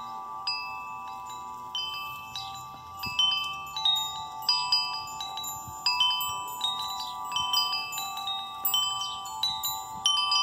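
Wind chimes ringing, struck irregularly with clear high notes that die away, sometimes several in quick succession, over a steady high whine.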